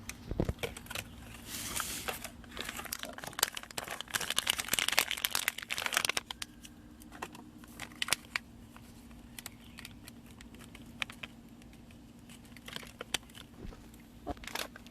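Plastic being handled and opened, crinkling and clicking: dense crackling for about the first six seconds, then thinning to scattered single clicks.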